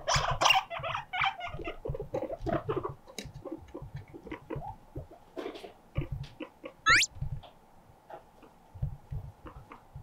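Guinea pigs scampering and hopping on a fleece bed: a quick patter and scuffling of small feet, busiest in the first second, with one short, sharply rising squeak about seven seconds in.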